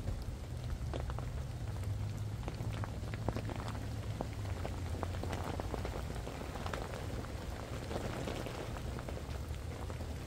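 Steady rain falling, with separate drops ticking irregularly throughout and a steady low rumble underneath.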